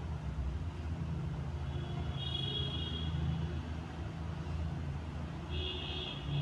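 Low steady background rumble, with a faint high tone about two seconds in and again near the end.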